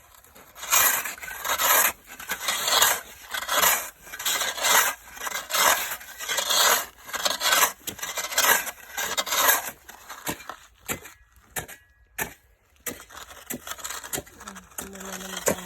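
Ice-crusted snow being crunched and scraped in regular strokes about once a second, then a short lull and a few scattered clicks near the end.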